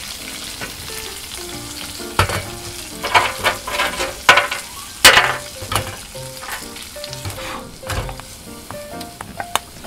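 Sliced onion and green pepper sizzling steadily in a frying pan over a wood-burning camp stove, with a run of sharp clacks and scrapes from the pan being handled and the food stirred with chopsticks, most of them between about two and six seconds in.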